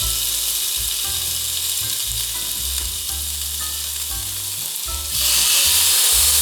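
Lemongrass-marinated chicken breast sizzling on an indoor electric grill, a steady hiss that grows louder about five seconds in.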